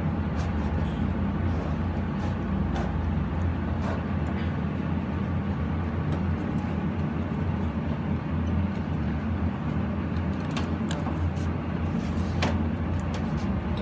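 Steady low machine drone in a kitchen, with a few light knocks of knives on plastic cutting boards as raw chicken is cut up.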